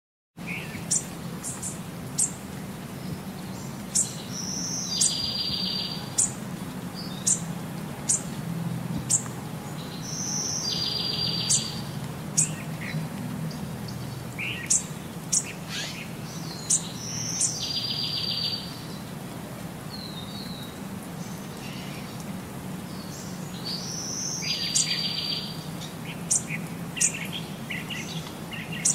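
Bird chirping: scattered short, high chirps, and about every six and a half seconds the same phrase of a high note followed by a buzzy trill lasting about a second. A low steady hum lies underneath.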